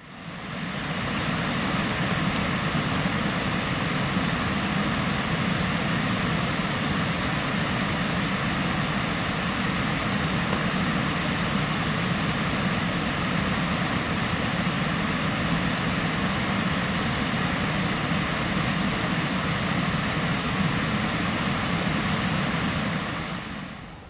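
Steady rush of fast-flowing water in the River Lathkill, fading in at the start and fading out near the end.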